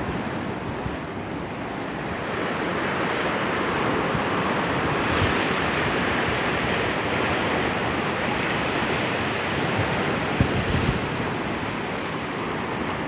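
Ocean surf washing over a rocky shore: a steady rushing hiss that swells a few seconds in, with wind buffeting the microphone.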